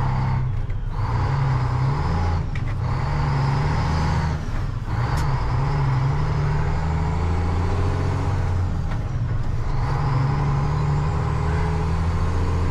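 Loaded dump truck's diesel engine running under load as it drives off, with several brief dips in the sound.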